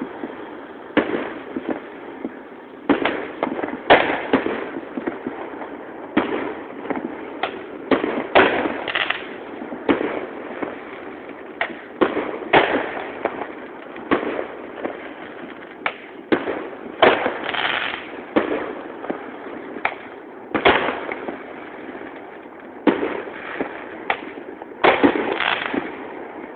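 New Year fireworks going off: a steady stream of irregular bangs and pops, some much louder than others, over constant crackling from more distant fireworks. At times several bangs come within a second.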